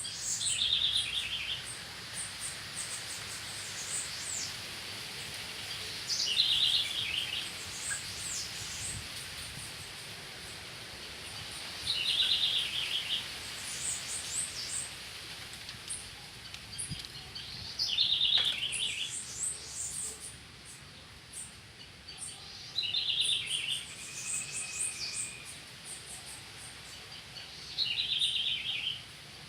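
Birds singing: a short trilled phrase about a second long repeats every five or six seconds, with quick high chirps in between.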